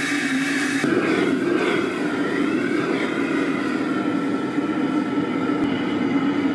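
High-powered gas wok burner roaring steadily under a wok, with food sizzling as it is stir-fried with a metal ladle.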